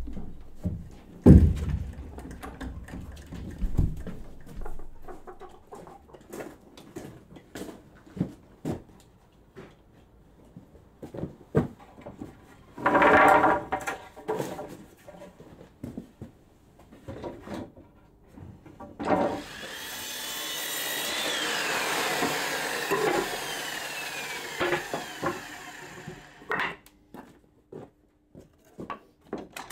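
Wooden boards clattering and knocking as they are handled, with a louder burst of clatter about 13 seconds in. Later a power saw runs for about seven seconds, swelling and then fading, followed by more wood knocks.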